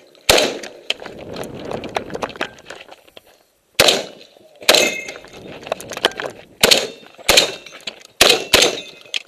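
Saiga 12 semi-automatic shotgun firing seven shots at irregular spacing, a single shot followed by a pause of about three seconds, then shots in quick pairs and singles.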